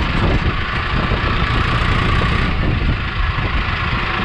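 Mahindra Arjun 555 tractor's 52 HP diesel engine running steadily, heard close up from the driver's seat as the tractor rolls slowly.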